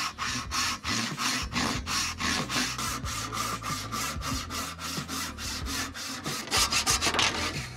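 Hand crosscut panel saw resawing a maple board along its length, the teeth rasping through the wood in quick, even back-and-forth strokes, about three to four a second, louder near the end.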